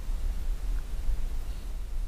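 Low, uneven rumble of wind buffeting the microphone, with a faint hiss above it.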